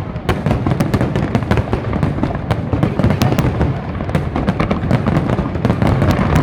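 Fireworks display going off continuously: many rapid sharp cracks and pops layered over a steady low rumble of booming shells.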